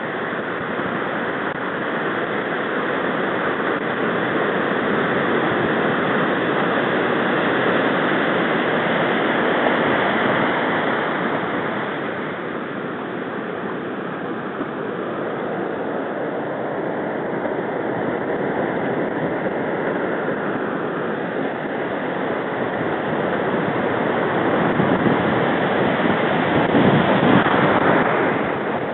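Ocean surf: breaking waves and foamy wash rushing in a steady noise that swells about a third of the way in and again near the end.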